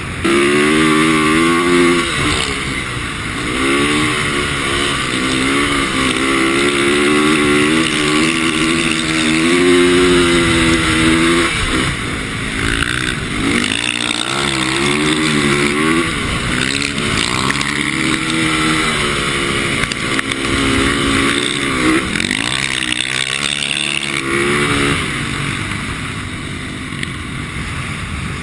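450cc single-cylinder four-stroke dirt bike engine revving up and down repeatedly as the rider throttles on and off while riding on ice, with a strong rush of wind noise over it. The engine note eases off near the end.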